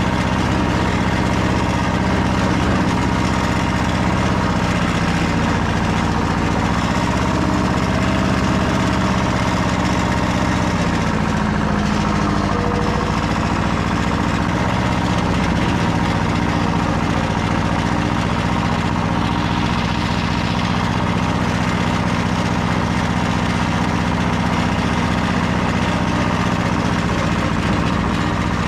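Small tractor engine running steadily, its note shifting briefly about twelve seconds in.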